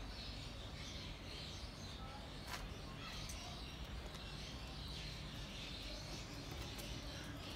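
Steady outdoor background with a low rumble, faint distant voices and a few soft bird chirps; the rooster does not crow.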